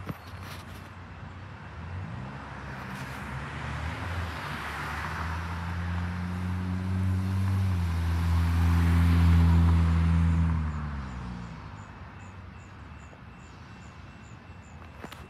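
A road vehicle driving past close by: its engine hum and tyre noise build over several seconds, drop slightly in pitch as it goes by, then fade away.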